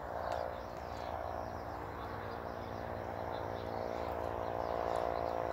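Outdoor rural ambience: a steady hum that slowly grows louder, with faint bird chirps over it.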